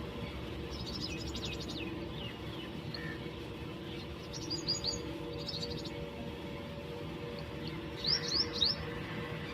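Sparrows chirping in three short bursts of rapid high chirps: about a second in, near the middle, and near the end.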